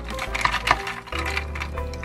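Ice cubes clinking against a clear plastic tumbler of milk tea as it is stirred with a straw: a few sharp clinks, over background music.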